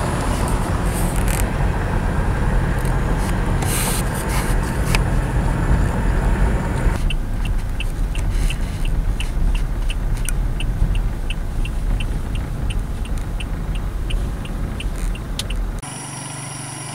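Rumbling road and wind noise of a ride in a moving vehicle. About halfway through, a steady high ticking joins in at about three ticks a second. Near the end the rumble gives way suddenly to a quieter, steady hum.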